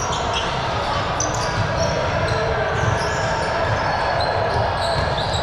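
A ball bouncing and being struck during a game on an indoor court, with short high squeaks and players' voices in the background.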